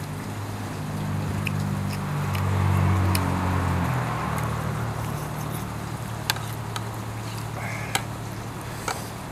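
A motor vehicle passing on the adjacent road, its engine swelling to a peak about three seconds in, then dropping in pitch and fading away. A few sharp clicks come near the end.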